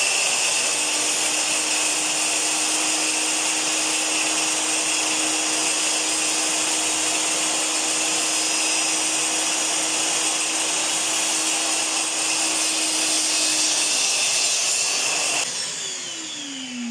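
Homemade rail-mounted circular saw running at full speed and ripping an HDF board to a straight edge: a loud, steady whine with a hum beneath it. About fifteen seconds in the motor is switched off and spins down, its pitch falling.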